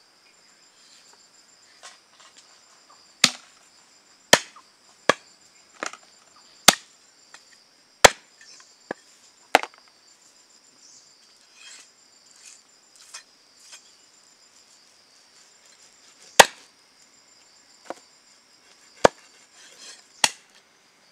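Heavy chopping strokes of a blade on a board: a run of sharp chops about a second apart, a pause with only light taps, then a few more chops near the end. Crickets chirr steadily behind.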